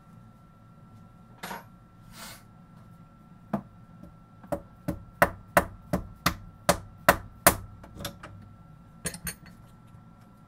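Dead blow hammer tapping the head of an Optimum BF20L milling machine to nudge it into tram: a quick run of about a dozen sharp knocks, some three a second, starting a few seconds in, then two more near the end.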